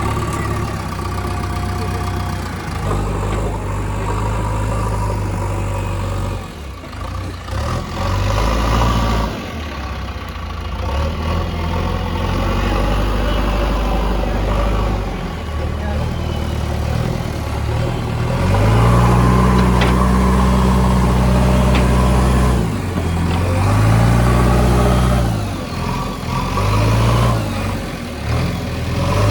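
Heavy diesel engines of a backhoe loader and a stuck truck running, idling steadily and then revving up in two longer spells, about two-thirds of the way through and again near the end, as the truck is pulled out of mud.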